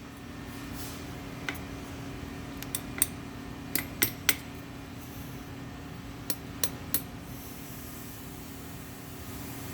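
Light, irregular metal-on-metal taps and clicks, about nine in a few seconds, from a steel tool knocking at the remnant of a broken 8 mm bolt stud inside a disintegrated hole to work it loose. A steady low hum runs underneath.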